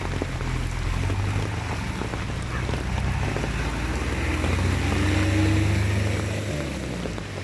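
A low, steady engine drone over a wash of water and rain noise, loudest a little past the middle.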